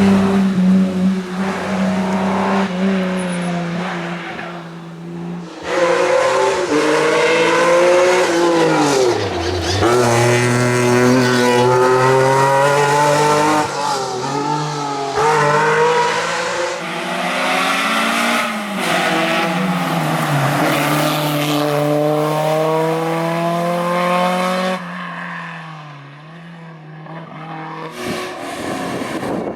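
Classic sports and racing car engines revving hard as several cars drive by in turn. Each engine note climbs through the gears and drops on lifts and downshifts, and there is a quieter lull near the end.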